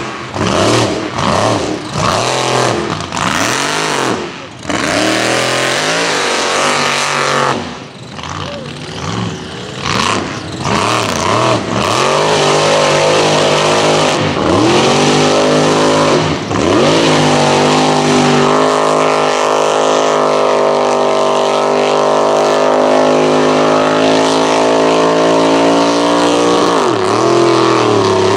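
Lifted mud-bog truck's engine revving hard in quick rising and falling blips, then held at high revs for about fifteen seconds while it drives through the mud pit, dropping off near the end.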